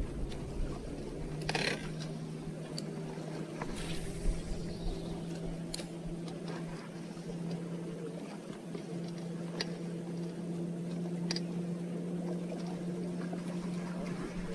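Bass boat's electric trolling motor humming steadily, its tone stepping up slightly about a second in, over the wash of water along the hull, with a few light clicks from the spinning reel and tackle being handled.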